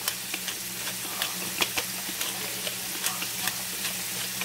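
Shrimp frying in butter in a nonstick skillet, a steady sizzle with frequent small sharp pops.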